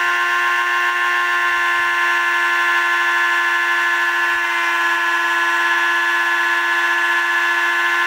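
Dremel rotary tool running at speed with a wire brush, a steady whine, as the brush scours a clock escapement wheel held against it between the fingers.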